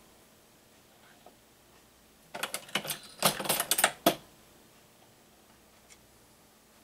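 A shotshell reloading press worked by hand: a quick run of metal clicks and clacks lasting under two seconds, a little past the middle.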